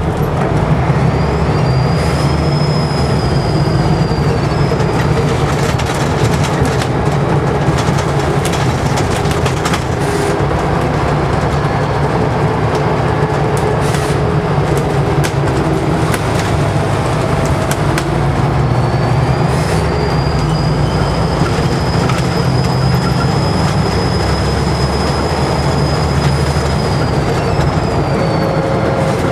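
Scania N94UD double-decker bus's diesel engine running under way, with its turbocharger whistling loudly over the low engine drone. The whistle rises about two seconds in and dies away by four; it comes back near twenty seconds, holds steady for several seconds and falls away near the end. Body rattles and knocks run throughout.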